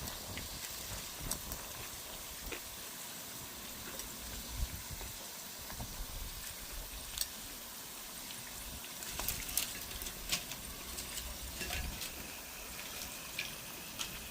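Dried fish frying in hot oil in an electric pan: a steady sizzle with scattered small pops and crackles.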